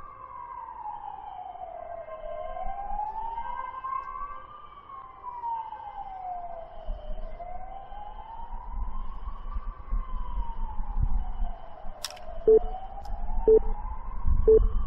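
Emergency-vehicle siren wailing, its pitch rising and falling slowly about every five seconds. Near the end a sharp click, then three short countdown beeps about a second apart.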